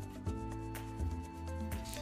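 Background music: sustained chords over a low bass line that changes note about once a second, with a few light percussive ticks.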